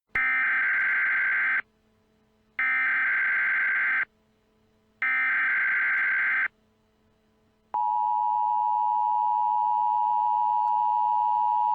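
Emergency Alert System alert opening: three bursts of SAME header data, each about a second and a half long with a short gap between them. About eight seconds in comes the steady two-tone EAS attention signal, the sign that an emergency message is about to follow.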